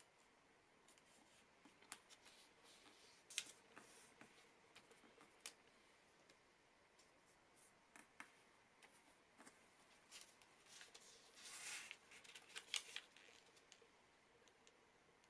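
A sheet of origami paper being handled and folded by hand: faint scattered crinkles and creasing scrapes, with a longer rustle of paper about twelve seconds in.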